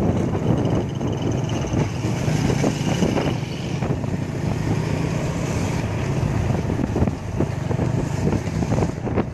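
Small motorcycle engine running steadily while riding along a road, with wind noise on the microphone.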